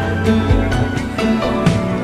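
Background music: an instrumental track with notes struck on a steady beat about twice a second.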